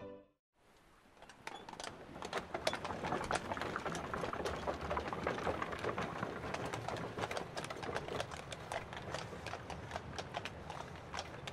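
Dubbed-in street ambience of horse-drawn carriages: hooves clip-clopping and wheels clattering on pavement, a dense irregular clatter of many clicks over a low rumble. It fades in about half a second in, after a brief silence.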